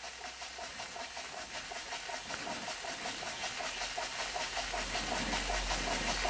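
Weeden No. 38 toy steam engine running slowly under steam: a steady hiss of steam with a quick, even puffing beat from the working cylinder, very quiet. A low hum swells in the last couple of seconds.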